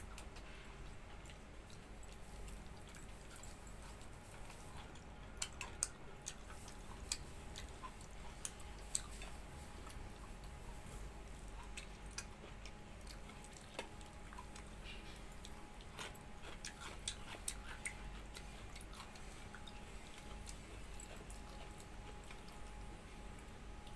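A person chewing a mouthful of pakhala, soaked rice eaten by hand, with scattered sharp clicks, most of them in the middle stretch, over a faint steady hum.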